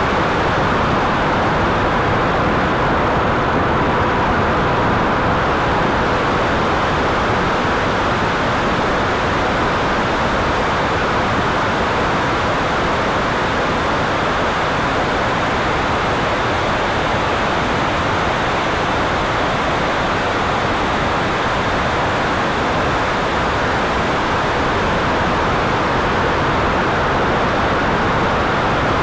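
70 mm 12-blade electric ducted fan running steadily at flying power, mixed with airflow rushing past the canopy-mounted camera, as a steady even rush with a faint whine under it in the first several seconds.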